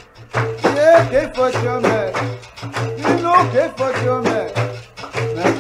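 Capoeira music: a voice singing over a steady, repeating percussion rhythm.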